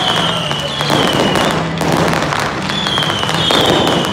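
Fireworks display going off: dense crackling and popping bursts, with short whistles that fall slightly in pitch several times.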